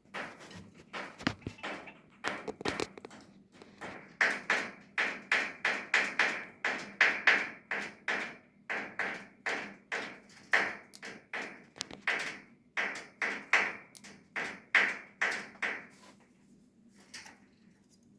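A long run of sharp knocks or taps, about two a second, that stops about 16 seconds in.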